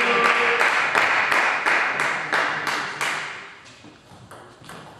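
Table tennis ball clicking off bats and table during a rally, about three hits a second. A noisy background haze fades away about three seconds in.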